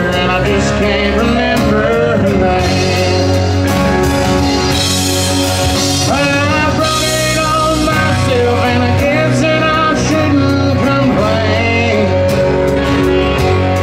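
Live country-rock band playing an instrumental break: electric lead guitar with bending notes over acoustic guitar, bass guitar and drums.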